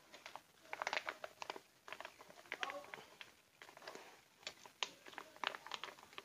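Clear plastic bags of dried bajakah root chips crinkling and rustling as they are handled, in quick irregular crackles.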